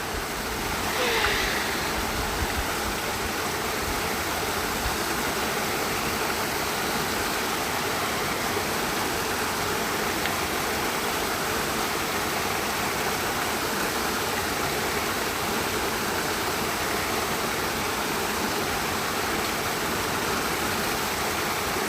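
Steady rushing of a waterfall, an even wash of falling water, with a short faint sound about a second in.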